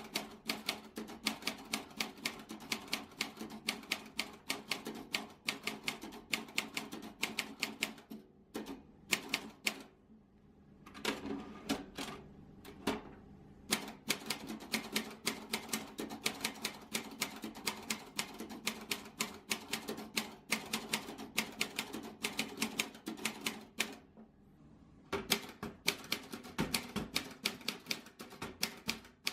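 A 1970s Olympia Traveller manual portable typewriter being typed on: runs of rapid key strikes, each typebar hitting the platen with a sharp clack. The typing stops briefly a few times, near a third of the way in and again shortly before the end.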